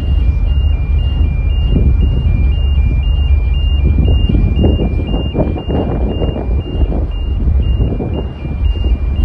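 Two-tone warning alarm beeping, alternating high and low about twice a second, over a heavy low rumble with gusts of wind noise.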